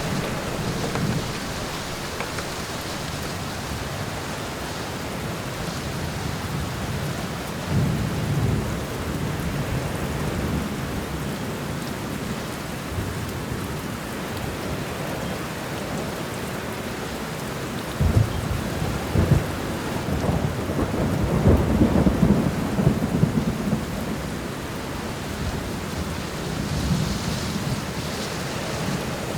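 Steady rain falling in a forest during a thunderstorm, with thunder rumbling low under it. The thunder grows stronger about two-thirds of the way in, with sharp cracks and a longer roll.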